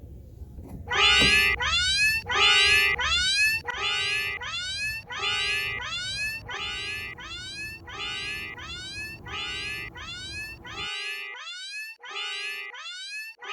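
A cat's meow looped over and over in a steady rhythm, about two a second, standing in for a car's noise. A low rumble beneath it cuts off suddenly about 11 seconds in.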